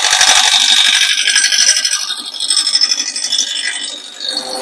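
A gouge cutting a square wooden blank spinning on a lathe, roughing off its corners: a loud, rapid chatter of interrupted cuts as the tool meets the corners. It eases somewhat near the end.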